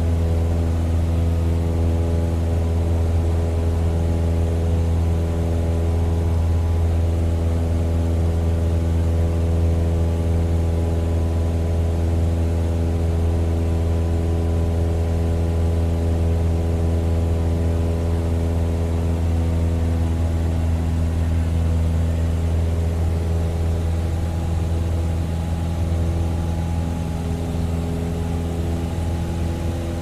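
Propeller plane engine running at a steady, even pitch, with a slight shift in its note about twenty seconds in.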